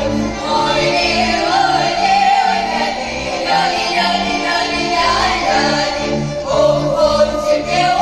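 Female folk vocal ensemble singing a Russian folk song together in open folk style, backed by a Russian folk string orchestra playing an even, bouncing bass of about two notes a second.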